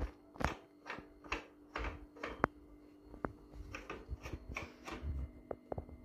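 Light clicks and knocks of the Evo VT5 electric scooter's handlebar grips being fitted and turned onto the stem by hand, about two a second at first, then a quicker cluster of clicks about four seconds in.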